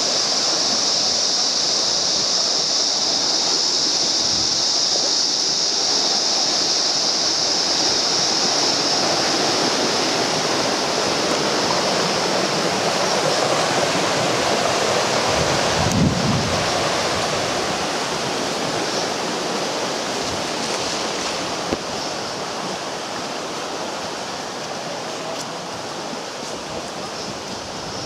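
River rapids rushing over rocks: a steady wash of water noise that grows gradually quieter over the second half, with a brief low thump about halfway through.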